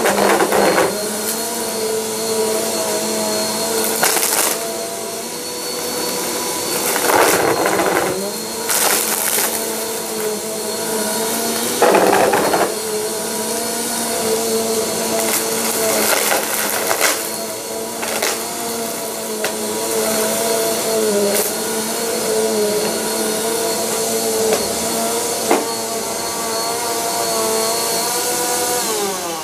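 Upright bagless vacuum cleaner running on carpet, a steady motor whine broken by half a dozen short bursts of rattling as small debris is sucked up. Near the end the motor is switched off and its pitch starts to fall as it winds down.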